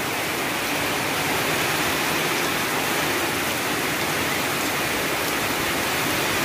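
Heavy rain pouring steadily in a tropical downpour, a dense, even hiss that stays at one level throughout.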